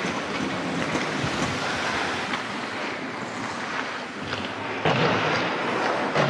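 Steady rushing and scraping of a goalie's gear and skates on the ice, close to the microphone, growing louder about five seconds in and ending with a sharp knock.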